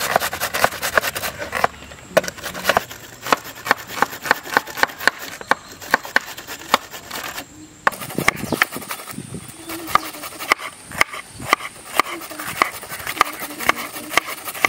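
Kitchen knife chopping vegetables on a wooden cutting board: a quick, even run of sharp knocks, about four a second. After about eight seconds it is a green bell pepper being sliced.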